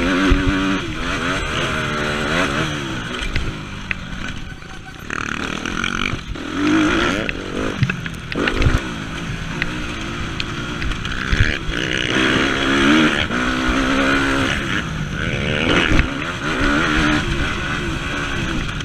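Motocross bike engine revving up and down again and again as the throttle is worked and gears change, easing off briefly about four seconds in. Wind rushes over the camera microphone, with scattered knocks from the bike over the rough track.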